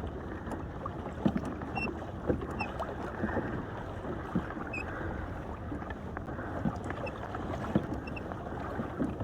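Ocean water lapping and sloshing against a fishing kayak's hull in swells, with wind on the microphone and scattered small knocks.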